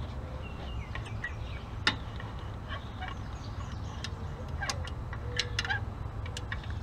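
Ratchet come-along on an engine hoist clicking as its lever is worked to lower an engine, a notch at a time: one sharp click about two seconds in and a run of several near the end. Birds chirp in the background.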